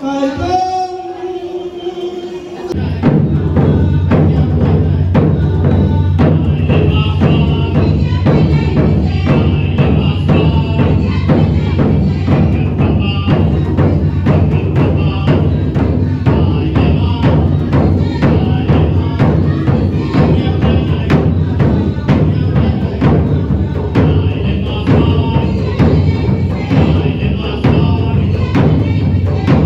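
Loud music with a fast, steady percussion beat over a constant deep low sound, which kicks in about three seconds in after a few short sliding pitched notes.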